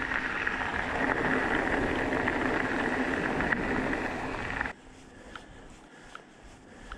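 Steady rushing noise of a mountain bike being ridden down a trail, picked up by the action camera. It cuts off suddenly about two-thirds of the way through, giving way to a much quieter background with faint, irregular ticks.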